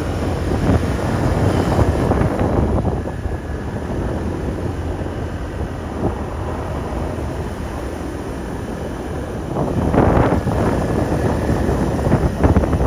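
Wind buffeting the microphone on a moving motor scooter, over the rumble of the ride, with louder gusts about ten seconds in and near the end.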